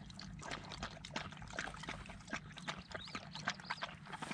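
A dog lapping water from a cut-open plastic container: quick, irregular wet laps, several a second.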